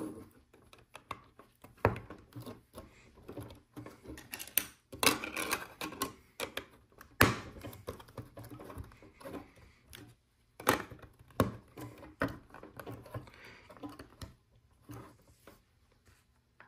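LEGO plastic pieces being handled and pressed together: irregular sharp clicks and light rattles, busiest about five to seven seconds in, as large plates are fitted onto a model train car's chassis.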